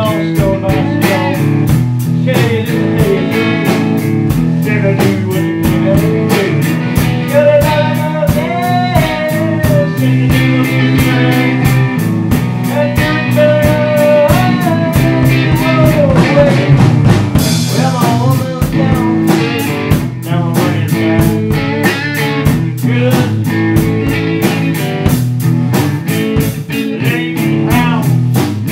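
Live blues-rock band: hollow-body electric guitar and drum kit playing, with bending pitched lines over the steady beat.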